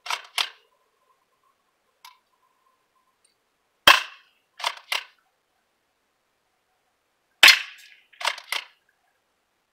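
A&K Remington 870 sawed-off replica, a spring-powered pump-action airsoft shotgun, fired twice about three and a half seconds apart, each shot a sharp snap. Each shot is followed within a second by two quick clacks of the pump being worked to cock it again, and two similar clacks come right at the start.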